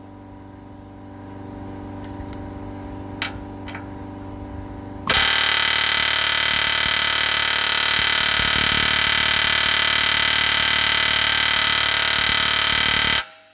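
Long-stroke pneumatic air hammer with a chisel bit hammering on a steel truck-frame rivet that is stuck fast. About five seconds in, it starts a loud, rapid, continuous run of about eight seconds and stops sharply. Before that there is a quieter steady hum with a few light clicks.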